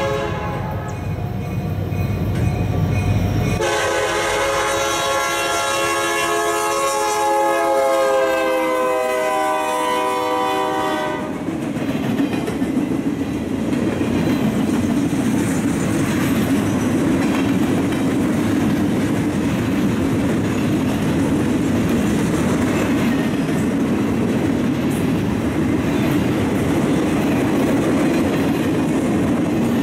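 Freight train passing close by: the locomotive's air horn sounds one long chord from about four seconds in, its pitch dropping slightly just before it cuts off, then the flatcars roll past with steady wheel noise and clickety-clack over the rail joints.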